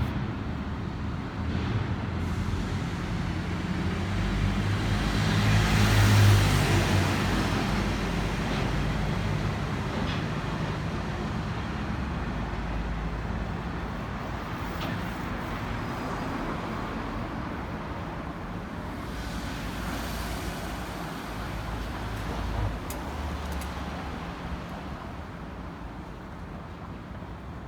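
Street traffic: steady road noise with a low engine hum, swelling as a vehicle passes close by about six seconds in and again, less loudly, about twenty seconds in.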